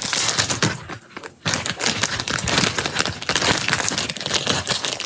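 Slime being squished and pulled out of its container by hand: a dense run of small sticky clicks and crackles, with a brief pause about a second in.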